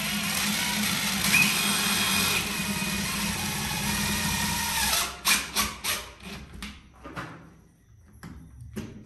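Power drill running steadily for about five seconds, its whine shifting slightly in pitch, then stopping, followed by a quick run of sharp knocks and a few scattered clicks.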